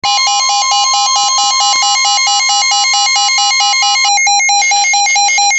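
Emergency alert tones for a severe thunderstorm warning: rapid electronic beeping over a steady warning tone. The steady tone stops about four seconds in and the beeping continues.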